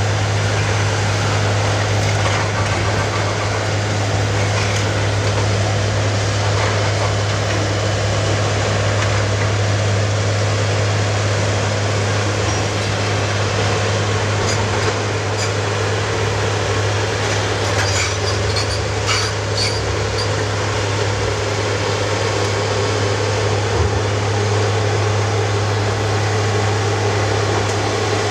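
Heavy diesel demolition machinery running steadily with a constant low drone, and a few light clinks of debris about two-thirds of the way through.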